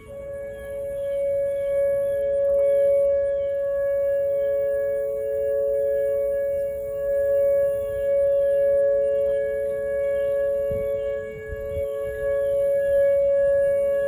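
Outdoor tornado warning siren sounding a steady two-tone chord during a test. Its loudness swells and fades over several seconds.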